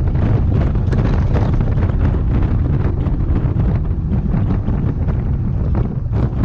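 Mitsubishi Lancer Evolution IX MR at speed on a race track, heard from inside the cabin: a steady, loud drone of its turbocharged 2.0-litre four-cylinder engine mixed with tyre and wind noise. The level dips briefly near the end.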